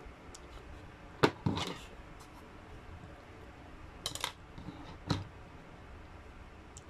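Several sharp clicks and taps of small hard objects being handled and set down on a desk. The loudest comes a little over a second in, with a quick cluster about four seconds in and another tap about five seconds in.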